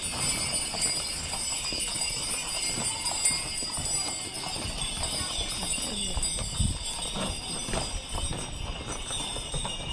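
Shod horses walking on asphalt, their hooves clip-clopping irregularly, while the bells on their decorated harness jingle continuously.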